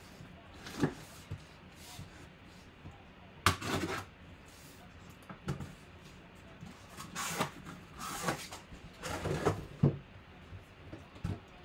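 A cardboard box being cut open and unpacked: a knife slitting the sealing tape, cardboard flaps and an inner box scraping as they are pulled apart, and plastic shrink wrap rustling near the end. It comes as a string of short scrapes, knocks and rustles.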